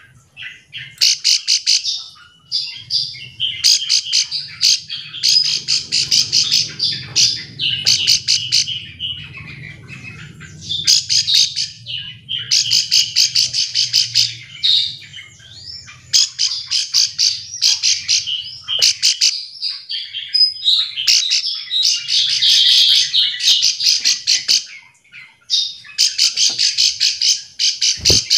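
Plain prinia (ciblek sawah) calling: phrase after phrase of rapid, buzzy trills, each lasting a second or two with brief pauses between. The calls are used to provoke other plain prinias into calling back.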